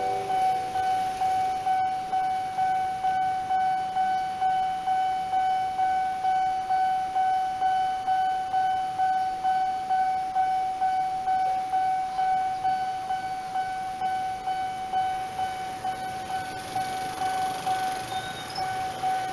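Railway level-crossing warning bell ringing: one steady electronic tone pulsing evenly, about twice a second, warning that a train is approaching. Near the end, motorcycle engines rise underneath it as bikes cross.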